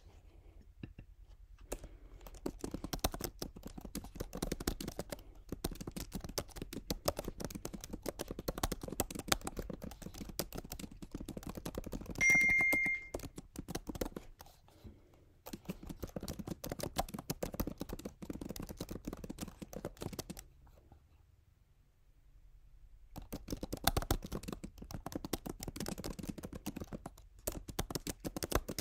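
Rapid typing on a laptop keyboard, in bursts with a couple of short pauses. A short high electronic beep sounds about twelve seconds in.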